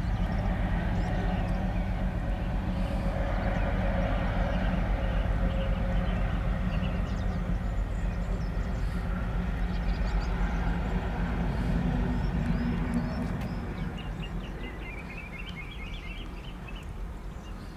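A Colas Rail Freight diesel locomotive running light engine with a steady low engine drone, which fades away over the last few seconds as it moves off. Birds chirp near the end.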